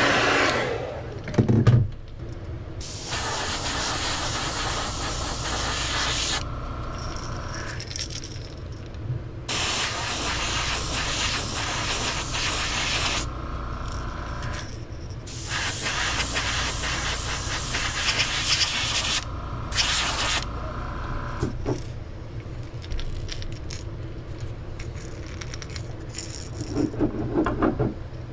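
Airbrush spraying a crankbait's white base coat in several bursts of hiss, each a few seconds long, with short pauses between. The metal helping-hands stand clicks and rattles as the lure is handled and turned, loudest about a second and a half in and again near the end.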